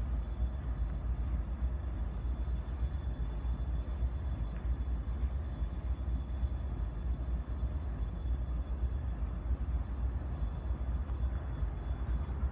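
Freight train rolling past and moving off: a steady low rumble with an even rolling noise above it, and a faint steady high tone.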